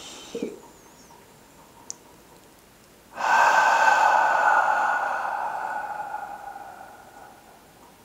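A man's slow, deep exhale through the mouth as part of a breathing exercise. It comes after a held breath, starting about three seconds in and fading away gradually over some four seconds.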